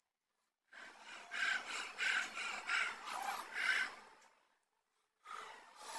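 A person breathing hard through the mouth in a quick run of short, noisy breaths for about three and a half seconds, then one more brief burst near the end: the reaction to the burn of raw green chilli.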